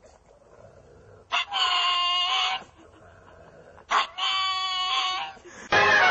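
A pug screaming twice, two long high-pitched cries of about a second each. Music starts near the end.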